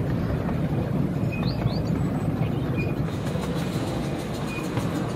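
Miniature 10¼-inch gauge steam train running along the track, heard from the carriage behind the locomotive: a steady rumble of the wheels on the rails.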